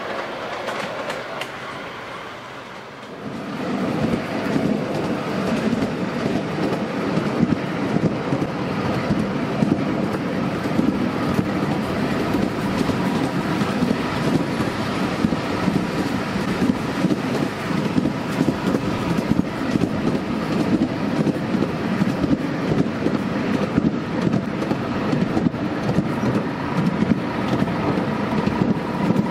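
Wheels of a 5-inch gauge miniature railway train running on steel rail: a quieter passing rumble at first, then about three seconds in a louder, steady rumble with rapid clicking from the rail joints, heard from on board the moving train.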